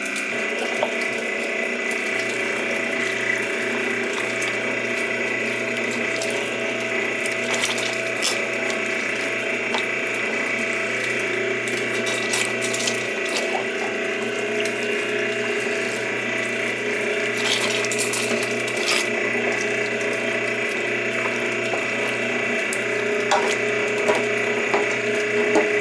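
Heavy-duty 1.5-horsepower electric meat grinder running steadily with a constant motor hum, as cooked meat is pushed down through it. Scattered sharp clicks and crunches, several of them near the end.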